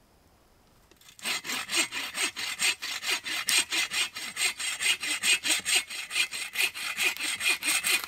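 Hand saw cutting through wood in quick, even back-and-forth strokes, about three a second, starting about a second in and stopping at the end.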